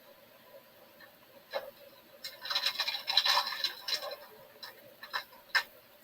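Kitchen handling noise: a scratchy scraping for about two seconds near the middle, with a few sharp clicks before and after it.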